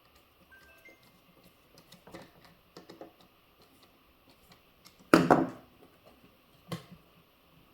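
Small hard parts and tools being handled on a workbench: scattered light clicks and rattles, then a louder clatter about five seconds in and a shorter knock near the end.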